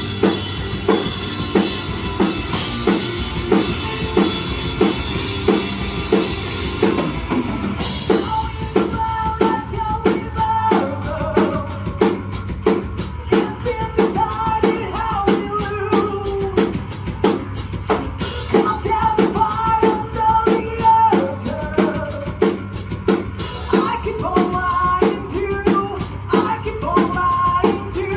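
Instrumental section of a rock song with no singing: a steady drum-kit beat with bass drum and snare under the band, and from about eight seconds in a lead melody line playing over it.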